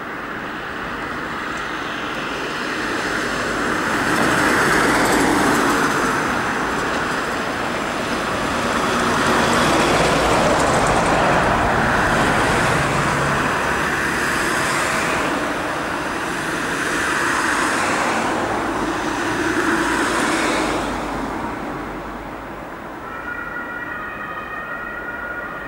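German two-tone ambulance siren (Martinshorn) sounding from a Mercedes-Benz Sprinter ambulance as it passes among road traffic. It swells loud several times and then falls away, ending as a steady high-low alternation in the distance.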